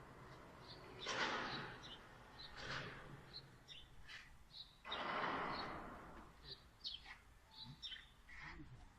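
A high-pressure steam washer's jet hissing in three bursts: about a second in, near three seconds, and a longer one of about a second starting about five seconds in. Birds chirp in short high notes throughout.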